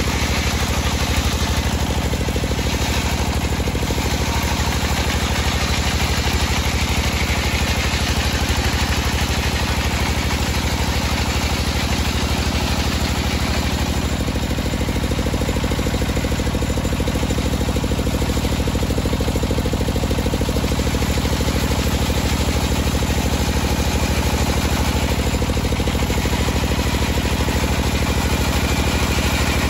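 Homemade table circular saw ripping a teak beam lengthwise, its blade cutting through the wood over the steady drone of the drive engine.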